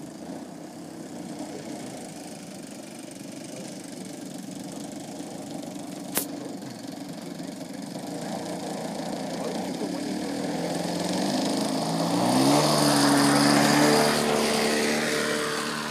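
Twin-cylinder DLE 111 gasoline two-stroke engine and 25x12 three-blade propeller of a 35% MX2 RC aerobatic plane in flight. It grows louder as the plane comes closer, rises in pitch about three-quarters of the way through, and is loudest near the end before easing off. A single sharp click is heard near the middle.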